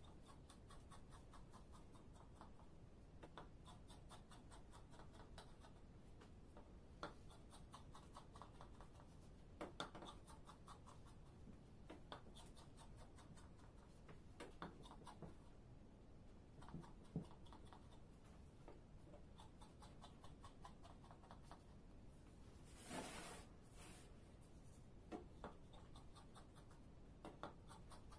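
Kitchen knife drawn through layers of buttered, unbaked baklava and scraping along the bottom of the metal baking tray as the pastry is cut into squares: faint, repeated scratchy strokes with an occasional sharper click of the blade on the tray, and a louder scrape near the end.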